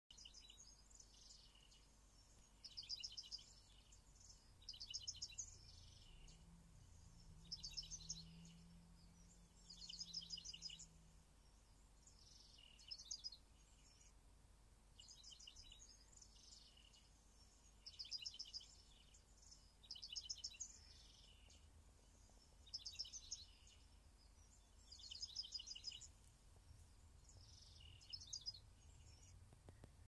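Faint high-pitched trilled chirps from wildlife, each lasting about a second and repeating roughly every two and a half seconds, over a low steady hum.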